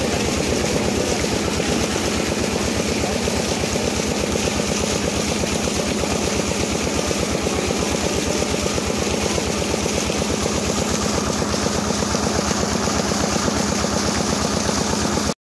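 Engine of a shallow-machine water pump running steadily with a fast, even pulse, over the rush of water pouring from the pump outlet. The sound cuts off suddenly near the end.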